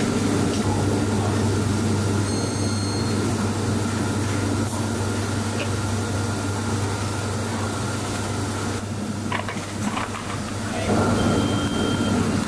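Steady low machinery hum of an electronics assembly line, with a few faint clicks of parts being handled and a brief thin electronic beep.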